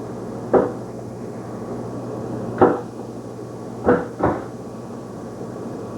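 Four sharp knocks, a baby banging on a high chair tray, two of them in quick succession, over a steady low hum.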